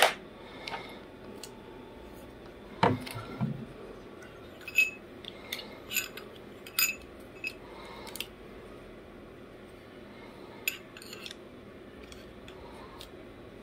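Irregular light clicks and clinks of small parts being handled: a metal mount adapter and spacer rings for a clip-on night-vision unit being tried on a rifle scope. The sharpest click falls right at the start and another about three seconds in.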